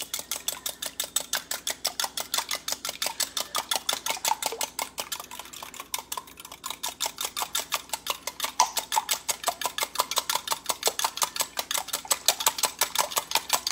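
Wire whisk beating eggs in a glass measuring cup, the wires clicking against the glass in a quick, even rhythm of about six strokes a second, easing off briefly around the middle.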